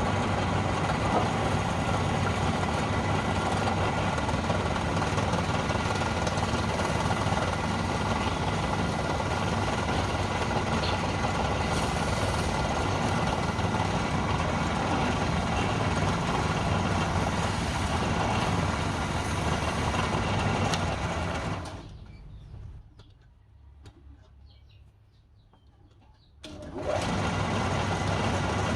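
A machine running steadily with a low hum. It dies away about 22 seconds in, goes almost silent for a few seconds, then starts again abruptly near the end.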